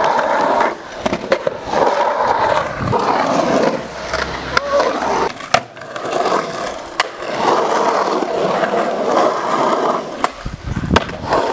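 Skateboard wheels rolling and carving across the bowl of an empty swimming pool, the rolling noise swelling and fading with each pass, with several sharp clacks of the board.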